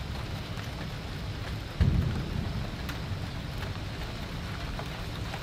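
Steady heavy rain pouring down, with a sudden low rumble of thunder about two seconds in that fades over the following second.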